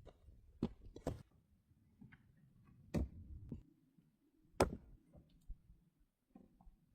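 A few separate knocks and clicks at irregular intervals, over a faint low rumble; the sharpest come about three and four and a half seconds in.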